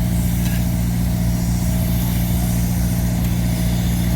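Heavy diesel engine of road-construction machinery running steadily at an even speed.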